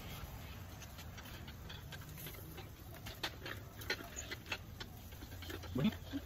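Scattered pops and crackles from meat grilling over a charcoal kettle barbecue, coming thicker past the middle, over a steady low wind rumble on the microphone. A brief low rising sound comes near the end.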